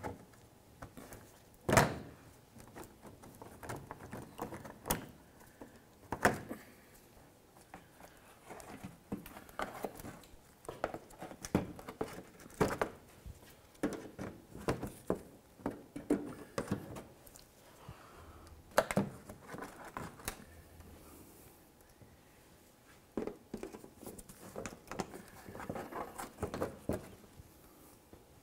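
Plastic push clips being pried and pulled out of a car's plastic underbody splash shield: irregular sharp clicks and knocks with light plastic rattling between them, the loudest snaps about two seconds in and again about two-thirds of the way through.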